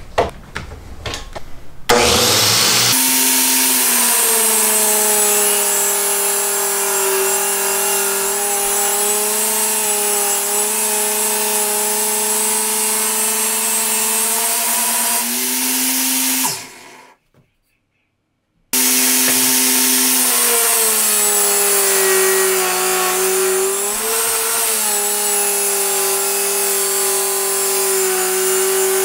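A few clicks, then a Makita GA4033 angle grinder, slowed to about 5000 rpm by a speed controller, starts about two seconds in and runs steadily with a whine, spinning a sanding drum. It winds down past the middle, there is a short gap, and it runs again while a pine board is sanded against the drum, the pitch dipping slightly under the load.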